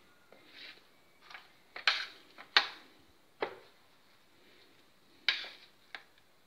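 Kitchen dishes being handled: about six sharp knocks and clinks of plates set on the counter, two of them loud, with soft rubbing between as hands spread masala paste over a chapati.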